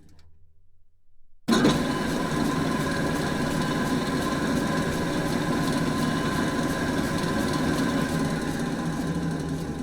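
A large drill press starts abruptly about a second and a half in, after a moment with only a low hum. It then runs steadily, a machine drone with a few constant tones.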